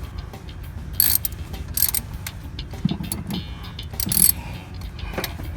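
Irregular metallic clicks, scrapes and rattles of hand tools and parts being worked in a minivan's engine bay while reaching for a rear spark plug. Sharper clicks come about one, two and four seconds in, with a couple of dull knocks between them.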